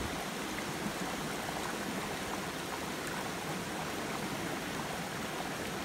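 Shallow stream running over rocks, a steady rushing of water.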